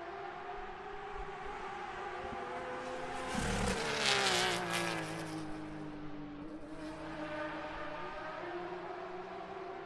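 A GT Le Mans race car passes close at speed about four seconds in, its engine note falling in pitch as it goes by. Other race engines run steadily farther off.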